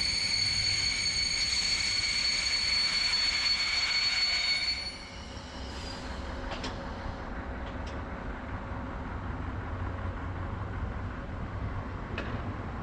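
Class 471 electric multiple unit running along the track: a steady high-pitched squeal over low rumbling that cuts off suddenly about five seconds in, then lower running noise with a few sharp clicks.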